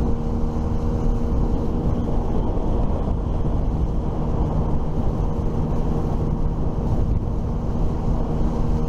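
Engine running at a steady speed, a constant hum with a low rumble.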